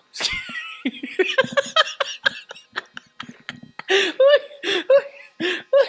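People laughing and talking excitedly, in short broken-up voice sounds with swooping pitch.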